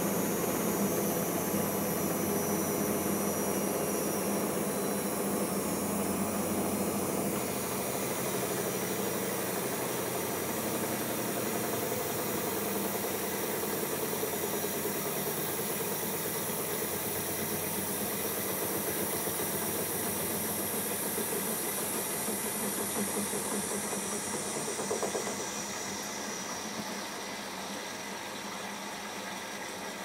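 Siemens IQ1430 washing machine running at the changeover from its 1000 rpm interim spin to the second rinse: a steady motor hum under a hiss. About 25 seconds in, the higher hiss dies away and the sound gets a little quieter.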